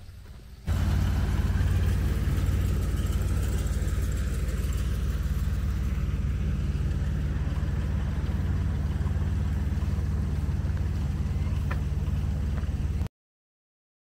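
A loud, steady, low engine rumble, starting abruptly a little under a second in and cutting off suddenly near the end.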